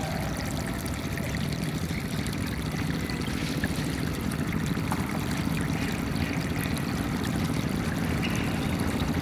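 Water flowing and trickling steadily, a stream or small cascade with a low, even rush.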